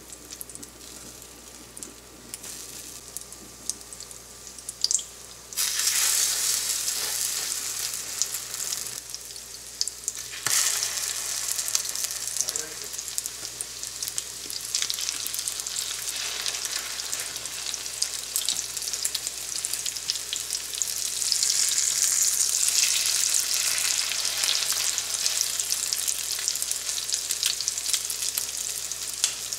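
Egg-dipped beef shami kababs shallow-frying in oil in a nonstick pan, a steady sizzle. The sizzle is faint at first and gets much louder about five seconds in.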